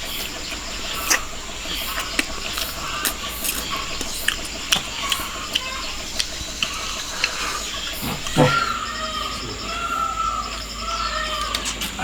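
Scattered light clicks and taps of eating utensils, with chickens clucking in the background, more in the second half.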